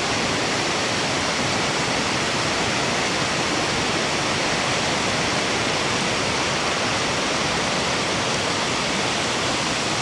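Steady, even hiss of rain falling.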